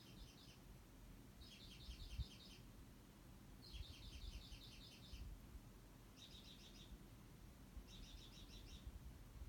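A songbird singing faintly, a short phrase of rapid high chirping notes repeated about every two seconds.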